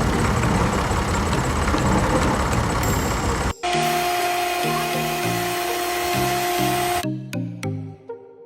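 A small electric motor runs loudly over background music. About halfway through, its dense noise gives way to a steady whine, which stops about a second and a half before the end, leaving only the music.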